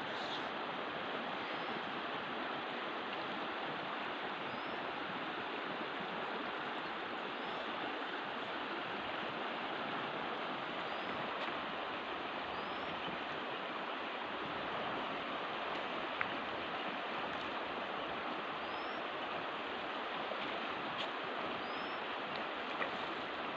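River water rushing steadily, with faint short high chirps repeating every second or two and a few light clicks.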